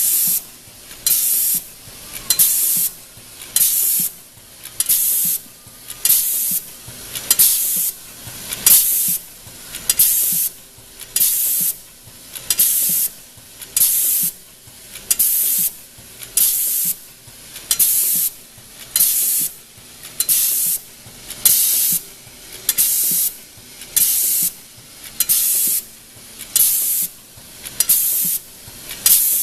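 Automatic hydraulic lock-nut crimping machine cycling steadily: a short sharp hiss about every one and a quarter seconds, one per crimping cycle, with quieter machine noise in between.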